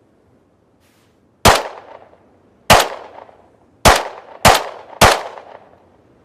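Semi-automatic pistol firing five shots, spaced ever closer: the first two a little over a second apart, the last three about half a second apart. Each crack trails off in a short echo.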